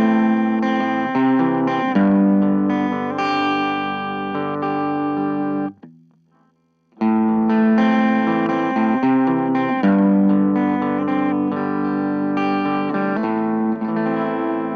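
Electric guitar with a single-coil pickup played through an Orange Micro Terror valve-preamp amp head, gain up and the guitar's volume knob rolled back for a lighter breakup. Ringing chords, cut off about six seconds in, then taken up again a second later.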